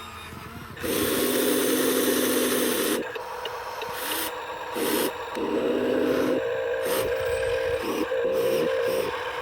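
Scale RC bulldozer and RC truck at work in loose soil: the whine of their electric drive motors starts and stops several times in stretches of a second or two, over a steady scraping hiss.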